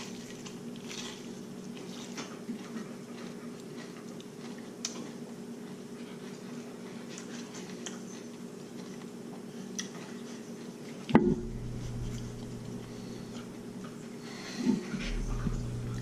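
Someone eating fried chicken: quiet chewing and small clicks of handling the food and plate over a steady low hum. A loud thump comes about eleven seconds in, and a smaller one near fifteen seconds.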